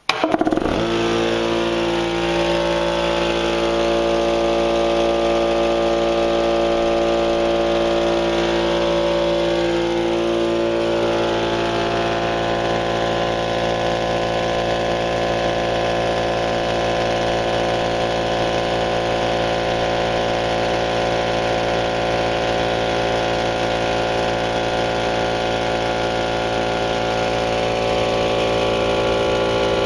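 Central Pneumatic 2.5-horsepower direct-drive air compressor switching on and running loud and steady as it pumps up its 10-gallon tank. It starts abruptly and holds a steady machine note.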